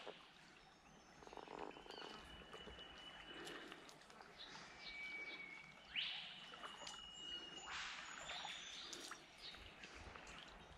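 Faint bird calls: thin whistled notes, each held for a second or so, and a quick rising note about six seconds in, over the low wash of a small flowing stream.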